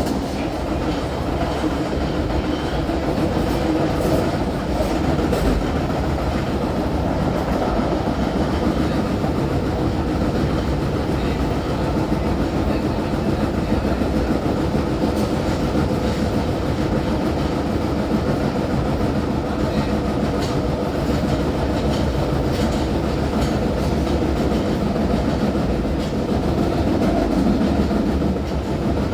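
Osaka Metro 30000A series subway train running between stations, heard from inside the car: a steady rumble of wheels on rail with scattered clicks over the rail joints.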